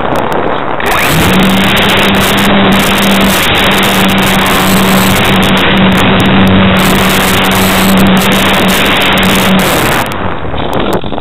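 ParkZone Radian Pro electric glider's motor and propeller spinning up about a second in, then running at a steady hum under loud wind rush on the onboard camera. The motor cuts off near the end.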